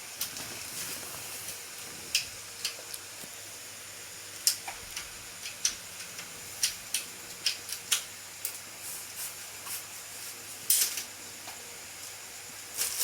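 Irregular sharp clicks and taps with some light rustling, from parts and packaging being handled, over a faint steady hiss.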